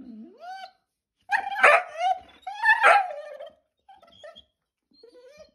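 A vizsla dog vocalizing in annoyance: a short low grumble that rises in pitch, then two loud drawn-out barks about a second and a half in, then a few softer whines near the end.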